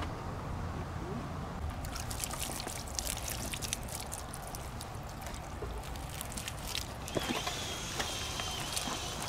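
Water pouring from a watering can, trickling and splashing onto potting soil and plant leaves, starting about two seconds in.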